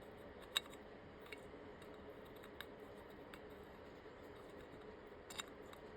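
Faint, scattered small clicks of hardware being handled as a part is worked onto the winch switch mount, over low room tone. The sharpest click comes about half a second in, with a couple more just before the end.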